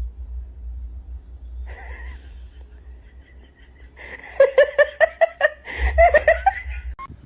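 A person laughing in a fast run of short pitched bursts, starting about four seconds in, after a brief single sound near two seconds.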